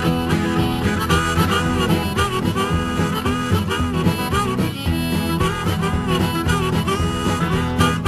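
Country boogie music: a harmonica solo with bending notes over a guitar backing, an instrumental break between sung verses.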